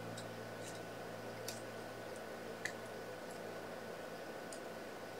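A few faint, scattered clicks and light taps from handling and placing small paper cut-outs while gluing, over a steady low hum.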